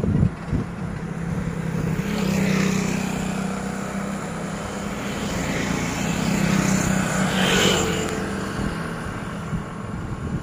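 Motor vehicle engine humming on the road, growing louder about two seconds in and swelling to a peak near eight seconds as it passes, then fading. Two short thumps at the start.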